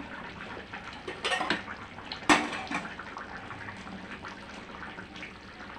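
Steel kitchen utensils and vessels clinking and knocking, with one sharp metallic clink a little over two seconds in.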